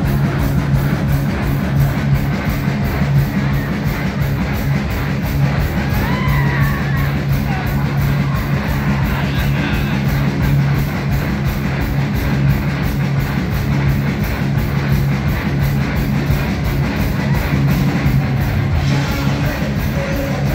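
A live rock band playing loud, with electric guitars, bass and drums.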